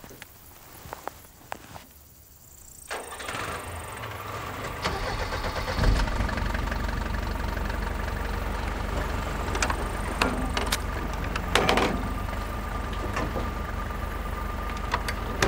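A vehicle engine starts about three seconds in and settles into a steady low running, with a few knocks and clanks over it.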